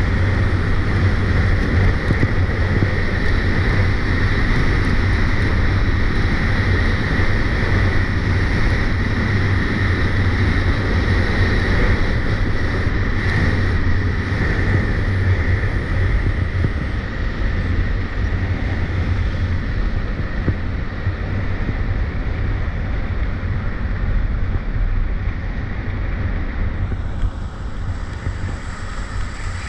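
Wind rushing over the microphone together with the scrape of skis on icy, hard-packed snow during a downhill run. Both ease a little near the end as the skier slows.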